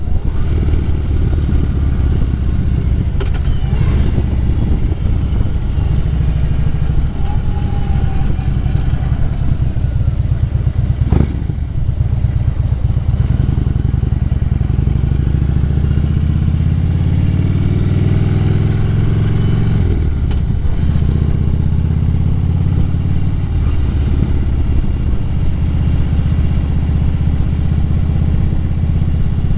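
Harley-Davidson motorcycle's V-twin engine running under way. The engine note climbs steadily through the revs after the middle, then drops back suddenly as the rider eases off or shifts. There is a single sharp knock a little before the middle.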